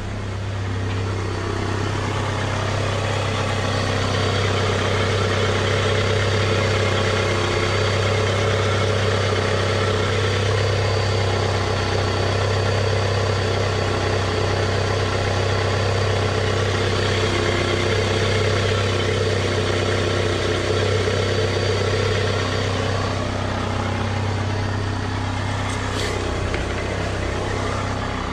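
Mazda petrol engine idling steadily after an ignition coil replacement. It still runs a little rough, and the owner wonders whether the blue smoke means it is burning oil.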